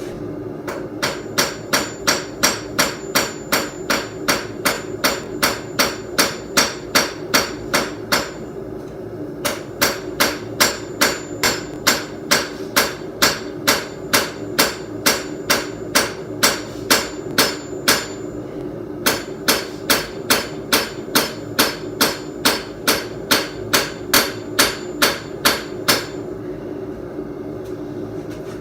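Hand hammer striking hot steel on an anvil, about three blows a second in three long runs with short pauses, each blow with a faint high ring: a bladesmith hammering a file-steel seax blade straight before quenching. A steady hum runs underneath.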